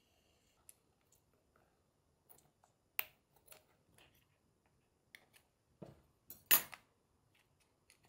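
Scattered sharp clicks and clacks of small stone tiles being pried off their sheet with metal tweezers and fingertips, the loudest clack near the end.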